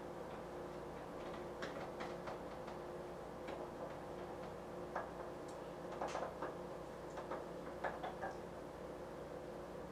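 Scattered light clicks and taps at irregular intervals over a steady hum.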